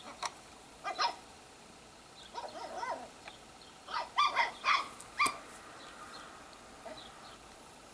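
Italian greyhound yipping and giving short barks, played back through a laptop's speakers: a pair of yips about a second in, a wavering whine near the middle, then a quick run of four or five yips.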